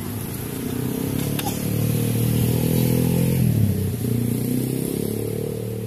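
Engines of passing motorcycles and cars, the sound building to a peak about three and a half seconds in, then falling away.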